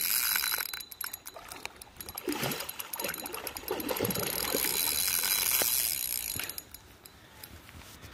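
Spinning fishing reel winding in line with a fast, ratcheting whir while a hooked carp splashes at the surface. The reeling stops about six and a half seconds in.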